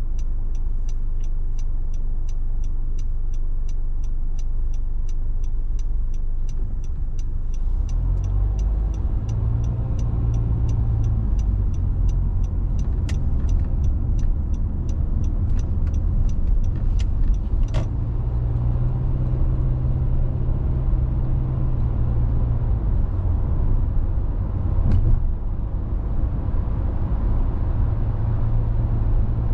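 Car driving on the road: steady engine and tyre rumble, with the engine hum growing stronger about eight seconds in. A regular ticking about twice a second runs for the first several seconds, then fades, and a few sharp clicks come later.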